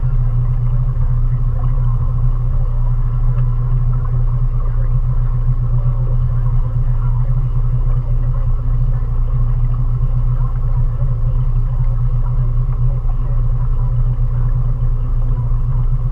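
20 hp Mariner outboard motor running steadily at cruising speed, a constant low-pitched drone heard close up from aboard the small cruiser it is pushing along.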